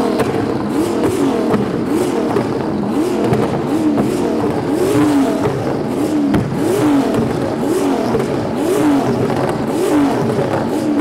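RB26 twin-turbo straight-six in a four-door Nissan Skyline R34 revved hard over and over in quick blips, more than one a second, the pitch climbing with each blip.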